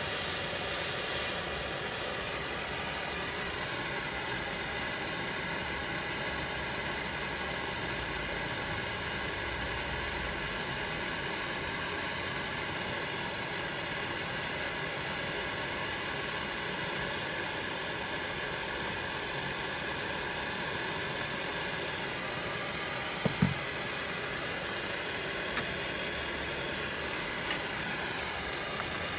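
Handheld gas torch burning with a steady hiss. A short knock comes about 23 seconds in, and two faint ticks follow near the end.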